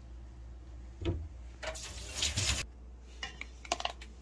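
Kitchen handling sounds around a stainless-steel mixing bowl: a soft thump about a second in, a brief rushing hiss lasting under a second, then a few light clicks near the end.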